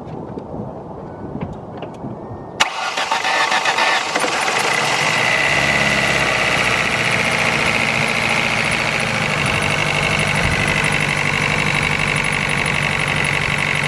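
2004 Ford Focus SVT's 2.0-litre four-cylinder engine cranks and starts a little under three seconds in, then settles into an idle with a loud, weird clicking chirp that keeps the same pace as the engine speed. The noise comes from the top of the engine, and a new exhaust manifold gasket and checked pulleys and tensioners have not cured it.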